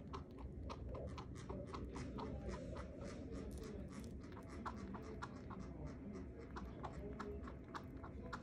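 Chinchilla chewing banana: a rapid, steady run of small sharp clicks, about four or five a second.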